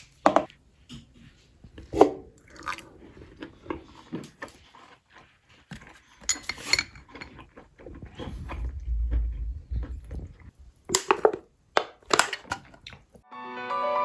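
A person eating: crunchy chewing with scattered clicks and clinks of tableware. Music starts near the end.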